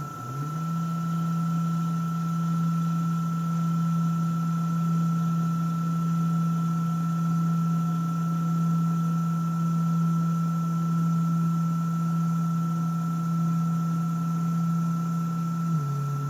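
Rownd desktop CNC machine running: its motor drive hums at one steady low pitch through a long constant-speed move, with a thin, steady high whine over it. The pitch steps about briefly at the start and again near the end as the moves change speed.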